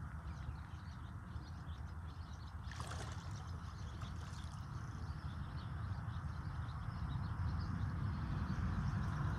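Pondside outdoor ambience: a steady low rumble that grows louder toward the end, faint high chirping, and one brief sharp swish about three seconds in.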